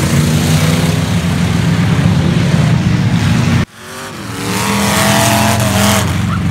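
A pack of enduro race cars, battered stock sedans, running loud around the track with their engines droning together. The sound cuts off abruptly about two-thirds of the way through, then swells back as engines rev, their pitch rising and falling.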